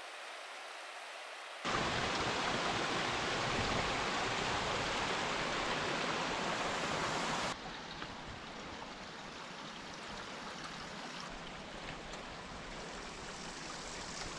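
Steady rush of running water that cuts in loud about a second and a half in and drops sharply to a softer rush about seven and a half seconds in, with faint ticks over the softer part.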